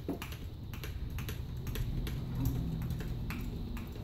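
Irregular light clicks and taps, about three or four a second, over a low rumble.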